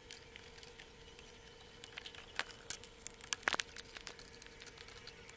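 Scattered light clicks and rustling as a laser-cut 3 mm plywood sheet is handled and its cut-out pieces are pressed, over a faint steady hum.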